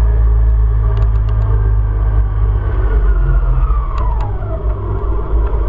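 Motorcycle engine under heavy wind rumble on the bike-mounted microphone. The engine note falls about four seconds in as the bike slows, and a few light clicks come through.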